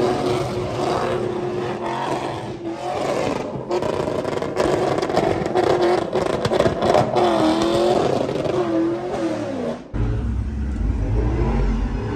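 Pickup truck doing a burnout, its engine revving up and down at high rpm while the rear tyres spin against the pavement. About ten seconds in, the sound cuts abruptly to a low rumble.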